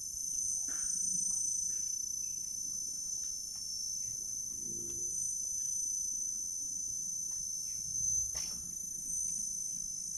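Steady high-pitched chorus of insects, with a few faint clicks.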